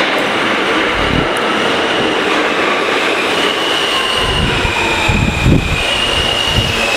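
R160-series New York City subway train pulling into an underground station alongside the platform, its wheels squealing in high-pitched tones from about three seconds in. Low thuds from the wheels on the track come about a second in and again near the end.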